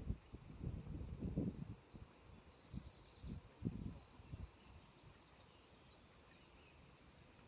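A small bird singing a quick run of high, rapid repeated notes for about three seconds, starting about two seconds in. Soft low thuds sound through the first four seconds, then fade.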